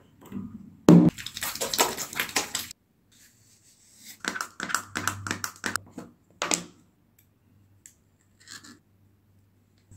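Skincare handling noises: a knock about a second in, then a rush of noise with rubbing that cuts off suddenly, followed by a run of soft crackles and clicks as the face is patted with a paper tissue.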